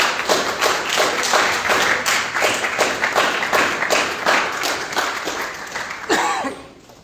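Applause: many hands clapping at once, dying away about six seconds in.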